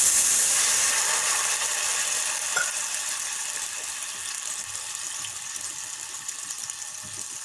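Water poured onto sugar in a hot saucepan, hissing and sizzling loudly. The hiss slowly dies down over the next few seconds into a fine crackle as the sugar syrup settles on the heat.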